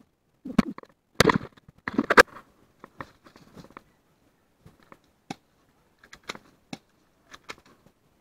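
Loud knocks and scuffs against a wooden barricade in the first two seconds, then scattered single sharp snaps of airsoft pistol fire, several in the last few seconds.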